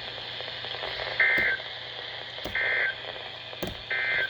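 NOAA Weather Radio end-of-message signal: three short bursts of buzzy two-tone SAME digital data, evenly spaced about a second and a half apart, over steady radio hiss and hum. The bursts mark the end of the emergency alert broadcast.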